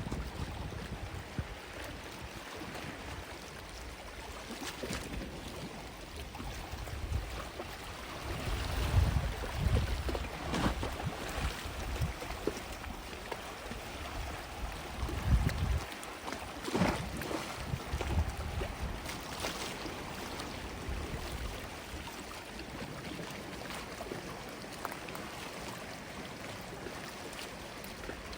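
Gentle sea waves washing on a sandy beach, swelling and fading, with low gusts of wind on the microphone now and then.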